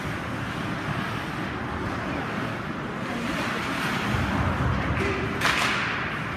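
Ice rink ambience during a hockey game: a steady wash of skates on ice and crowd noise, with a sharp, brief crack about five and a half seconds in.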